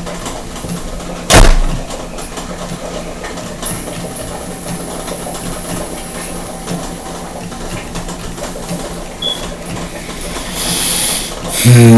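Steady hiss with a single sharp knock about a second and a half in; near the end a loud, long shofar blast begins, holding one pitch.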